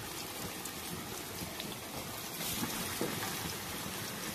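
Batter-coated fish pieces deep-frying in hot oil in a wok: a steady sizzle with scattered small pops.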